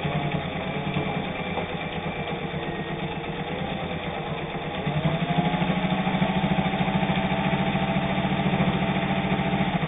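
Singer 201 all-steel, gear-driven sewing machine running on its built-in motor, stitching through eight layers of heavy denim without trouble. It sews at a steady pace, then speeds up and gets louder about halfway in and holds the faster speed.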